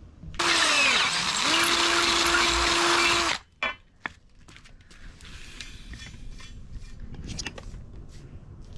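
Electric drill boring into a thick tinned copper bus bar. The motor's pitch sags under load, then picks up and runs steady, and it stops abruptly about three seconds in. Scattered light clicks follow as the bar is handled.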